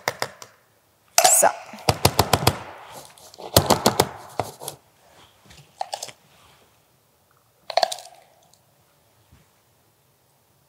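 Metal spoon clinking and tapping against a glass bowl and scooping biscuit crumbs. Two quick runs of rapid taps come about a second in and near four seconds, with single clinks later.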